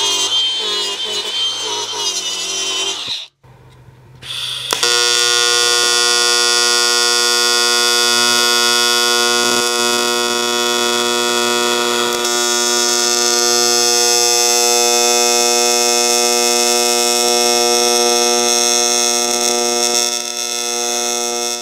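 A grinder's wire wheel scrubbing aluminum for about three seconds, its whine wavering under load. After a short break comes a steady AC TIG arc buzz on aluminum for about sixteen seconds, as the contaminated tack is re-done.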